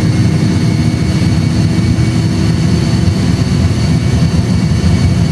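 Airbus A320 flight simulator's reproduced sound of the jet engines at take-off thrust during the take-off roll: a loud, steady low rumble with a faint high whine.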